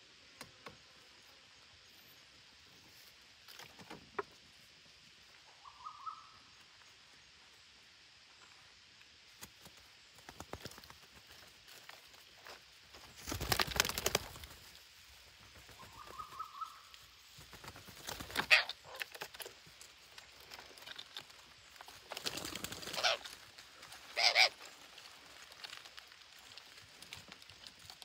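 A burst of wing flapping as a green parakeet flutters at a hole in a tree stump, about halfway through, followed by a few shorter flutters or scuffles. Two faint short chirps come before and after the first flapping.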